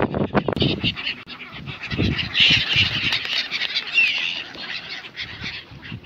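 A flock of gulls calling over water: a jumble of harsh squawking calls, busiest in the middle, with a few low thumps near the start and about two seconds in.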